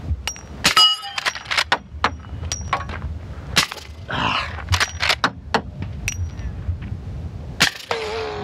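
Suppressed Marlin Dark .44 Magnum lever-action rifle firing 400-grain subsonic cast bullets in a quick string of muffled shots, with the lever worked between them. Bullets hit steel targets with sharp clangs, some left ringing.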